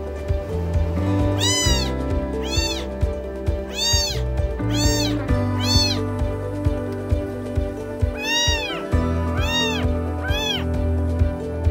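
A very young kitten meowing, eight short high cries that each rise and fall in pitch: five in the first six seconds, then three more after a pause. Background music plays under the cries.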